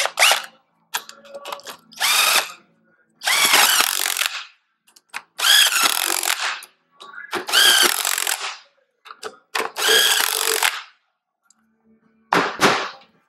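Cordless power driver spinning a socket on the axle nut of a scooter wheel hub in about six short bursts of roughly a second each, the motor winding up and down with each squeeze of the trigger.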